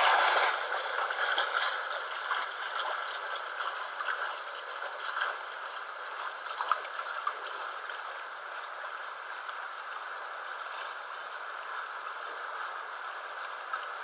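River water rushing steadily, with faint scattered splashes and ticks, loudest in the first moment.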